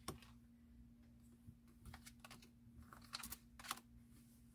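Faint light clicks and rustles of tarot cards being slid and gathered up on a cloth-covered table, the clearest two taps about three seconds in, over a faint steady hum.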